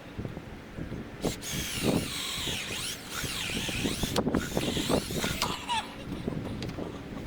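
A vehicle driving past, a hiss of about four seconds that sweeps in pitch as it goes by, over low knocks and scrapes.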